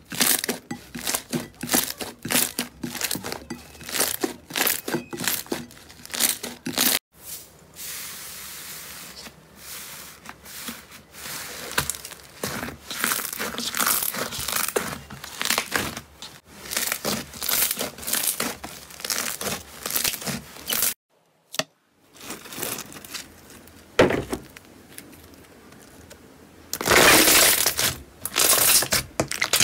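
Slime being squeezed, poked and pressed by hand, giving runs of quick crackles, pops and crinkly squelches, with abrupt cuts between short clips and a brief silent gap about two-thirds of the way through.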